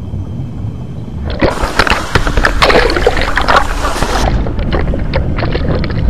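Sea water splashing and sloshing around a camera at the water's surface. A low, muffled underwater rumble gives way about a second in to loud crackling splashes. After about four seconds it drops to lighter, bubbly splashing.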